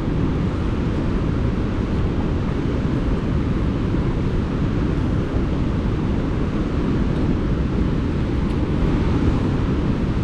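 Steady rushing of a large waterfall close by, with wind and spray buffeting the microphone.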